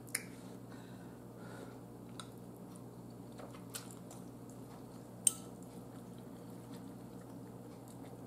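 Quiet sounds of a person eating noodles: soft chewing with a few faint clicks, the sharpest about five seconds in, over a steady low hum.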